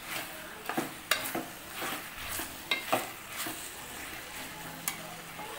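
A metal spoon stirring chilli chicken in a metal pot, with irregular clinks and scrapes against the pot, over a faint sizzle from the pan on a low flame.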